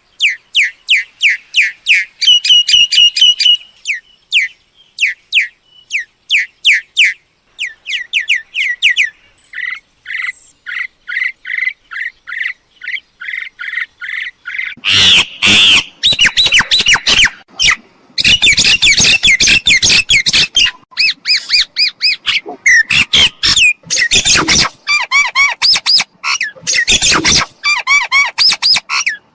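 Mynas calling: quick series of short, clipped whistled notes, then from about halfway a louder, harsher run of chattering and squawking calls. It is a myna-call lure track, played to draw mynas in.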